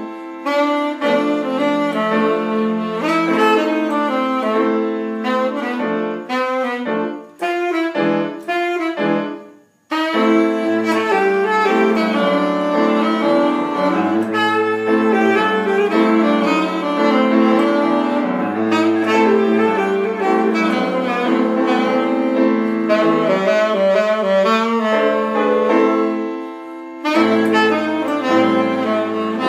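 Saxophone playing a jazzy melody over piano accompaniment. Between about six and nine seconds in it plays short detached notes, breaks off briefly near ten seconds, then carries on with a continuous line; deeper piano bass notes come in near the end.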